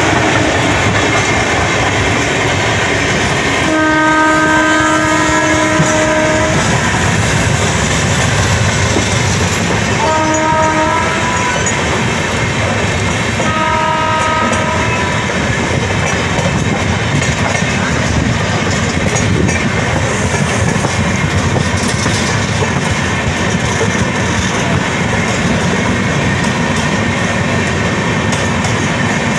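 Passenger train running along the rails, a steady rush and rumble heard from an open coach door. A train's multi-tone horn sounds three times: a long blast about four seconds in, a short one about ten seconds in, and another a few seconds later.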